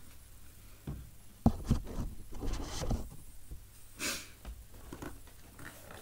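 Cardboard board-game box handled and its lid slid off: a thud and a sharp knock, then a couple of seconds of cardboard scraping and rustling, and another short scrape about four seconds in.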